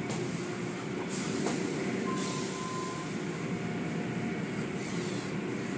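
Automatic tunnel car wash running: a steady rumble of machinery and the rush of water spray and cloth brushes working over a car. The spray hiss swells briefly twice, and a faint thin whine sounds for about a second midway.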